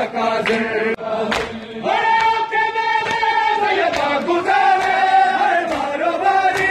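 A crowd of men singing a nauha, a Shia lament, in chorus, holding one long note about two seconds in. Sharp slaps of hands on bare chests (matam) come now and then.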